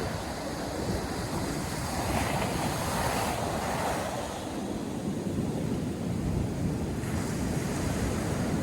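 North Sea surf breaking and washing ashore in a steady roar, with wind buffeting the microphone. A wave's wash swells up about two to four seconds in, then settles.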